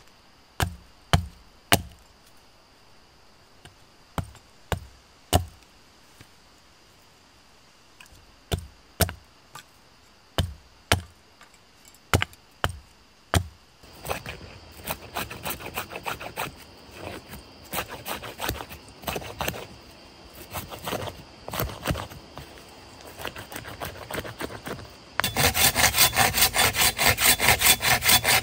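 Wood being cut with a hand saw. First come sharp knocks on wood in twos and threes. About halfway through, uneven rasping saw strokes begin, and near the end they turn into fast, even, louder sawing strokes.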